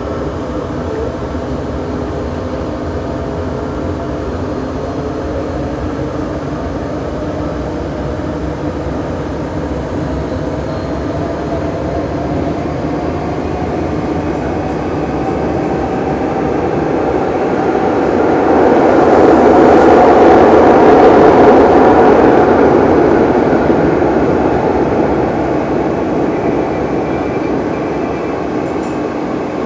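Renfe series 446 electric commuter train running, with a steady mix of tones that slowly rise in pitch. A louder rushing noise builds about two-thirds of the way through, peaks, then eases off again.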